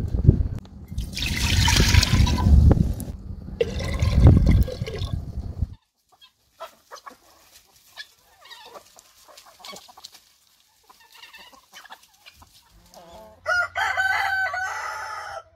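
A rooster crowing once near the end, a single call of about two seconds. Before it, faint scattered clucks and scratching of chickens. The first five or so seconds hold a loud, noisy rumble and hiss that cuts off abruptly.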